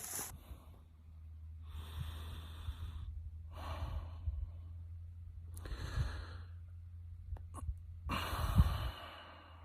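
A person breathing close to the microphone: four slow, audible breaths over a steady low hum.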